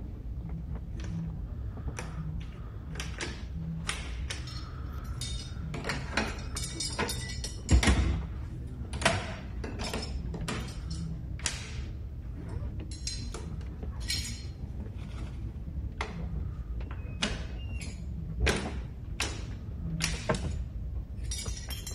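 Keys working the locks of an antique iron strongbox: many sharp metallic clicks and clacks as keys turn and hidden keyhole covers and bolts move, with one heavier thump about eight seconds in.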